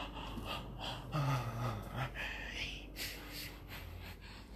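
A person's breathy, whispered vocal sounds played in reverse, with one short voiced sound about a second in.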